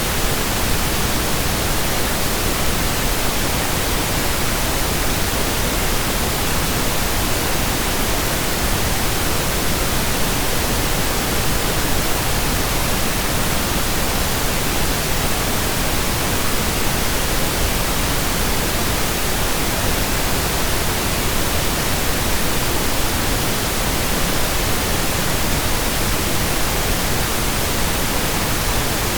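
Steady pink noise: an even, unchanging hiss spread across all pitches, with no events or rhythm.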